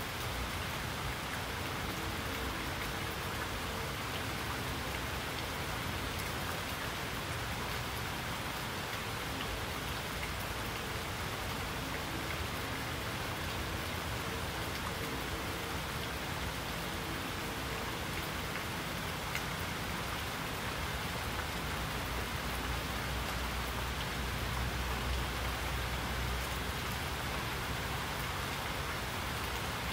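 Steady rain falling, an even patter with no breaks. A low rumble swells underneath for a few seconds near the end.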